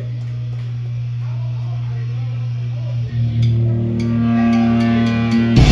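Amplified guitar drone with a steady low hum and faint crowd chatter, swelling louder with layered overtones from about three seconds in; near the end the band cuts in all at once with a loud, dense wall of noise.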